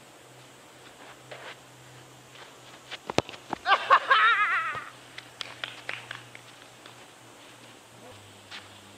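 A soccer ball kicked once, a single sharp thud about three seconds in, followed at once by a loud, wavering shout from a man. A few lighter knocks follow.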